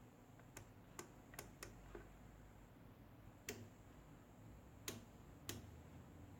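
Faint, sharp clicks of an analog oscilloscope's front-panel switches and knobs being worked. There are seven in all, four close together in the first two seconds and three more spaced out after.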